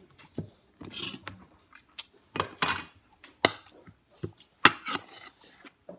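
Irregular sharp knocks and clatter of eating utensils against a dish, with scraping and rustling in between, about five distinct knocks.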